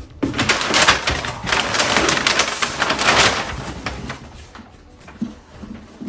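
Packaging being handled and torn open, a dense crinkling and rustling with many small crackles for about four seconds, then fading to a few soft knocks.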